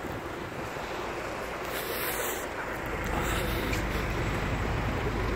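Street traffic noise with wind rumbling on a handheld phone's microphone; the low rumble grows stronger about three seconds in.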